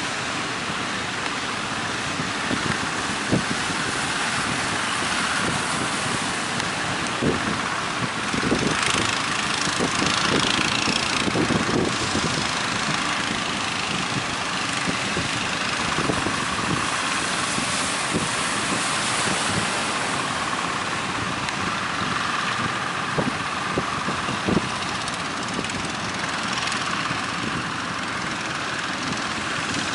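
Boat engine running steadily, under a constant rushing noise of wind and water, with scattered low thumps.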